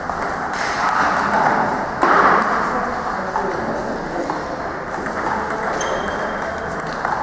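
Table tennis rally: a ping-pong ball clicking off bats and table in an irregular series of short hits, with voices in the background.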